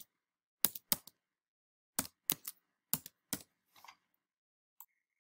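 Computer keyboard keystrokes: about eight separate key taps, two just under a second in and a quicker run of about six from two to three and a half seconds in, as a word is typed.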